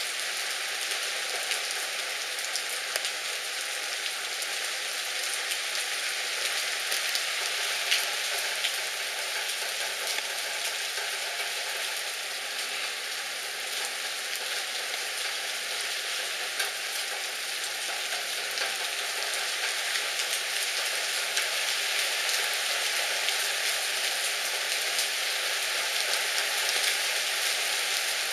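Heavy rain pouring down on a street and parked cars: a steady hiss dotted with the patter of individual drops, getting a little louder in the second half.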